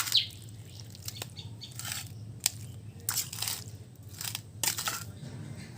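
Several short scraping, crunching strokes of salt being mixed into mango mustard pickle, at irregular intervals over a steady low hum.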